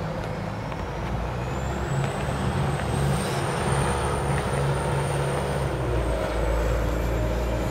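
City transit bus driving past, its engine running with a high-pitched whine that rises about a second in and holds as the bus goes by.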